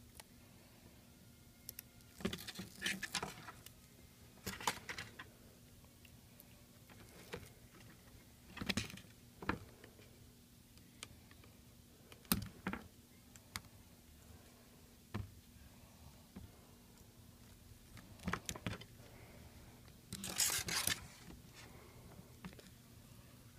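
Scattered small clicks, taps and brief rustles from hands handling an iPad and its repair parts and tools, coming irregularly every second or few seconds, over a faint steady hum.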